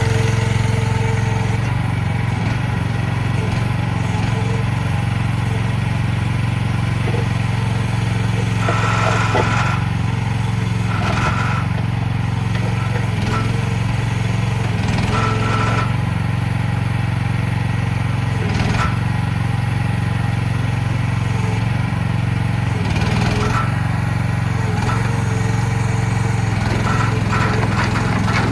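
CFG H15R mini excavator's small engine running at a steady speed, with a few short knocks and rattles from the machine at intervals.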